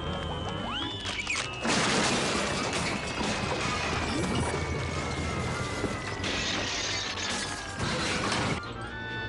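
Cartoon sound effects: a long whistle sliding slowly down in pitch over a stretch of crashing, rattling noise that swells twice, with music underneath.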